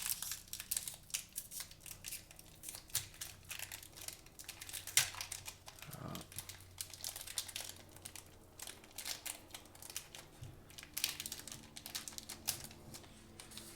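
Trading card pack wrappers being crinkled and torn open by hand, a long run of irregular crackling and tearing as the packs prove hard to open.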